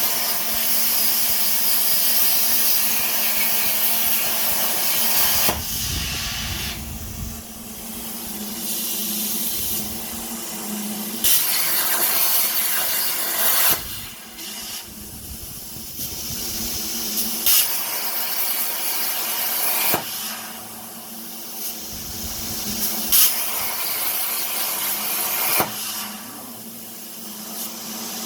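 Electronic dance music: a held synth chord under swelling white-noise hiss that builds and cuts off sharply every two to three seconds.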